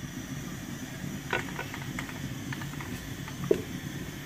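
Tomatoes and onions frying in oil in a metal pot, stirred with a wooden spoon: scattered small ticks and one sharp knock about three and a half seconds in, over a steady low hum.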